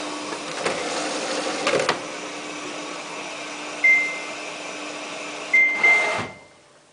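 Samsung WF8804RPA washing machine filling in service mode, a steady hiss of water through the inlet valve with a couple of knocks. The control panel beeps once about four seconds in and twice near the end, and the water flow then cuts off abruptly.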